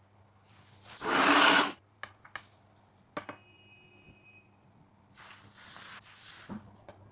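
A loud, brief rustling noise about a second in, followed by a few sharp clicks, then a softer, longer rustle near the end.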